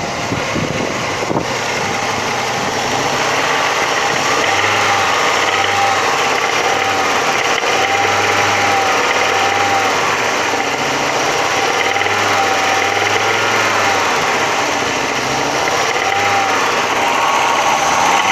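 Audi 100 2.3's NF five-cylinder engine revved up and down several times. The title names a knock at about 3000 rpm and above, said to be clearer under load, as the fault being demonstrated.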